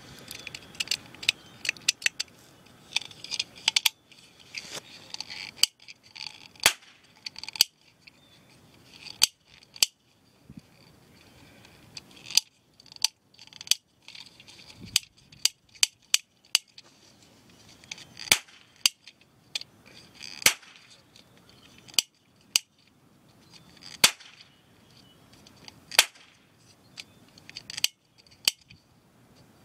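Toy cap gun firing caps one after another: sharp pops roughly every one to two seconds, with lighter mechanical clicks between shots as the broken-triggered gun is worked by hand.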